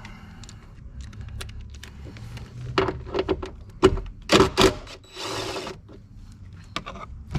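Sharp clicks and knocks of hand tools and metal parts as a car's seat belt retractor unit is unbolted and worked loose, with a cluster of loud knocks midway and a brief rasp about five seconds in.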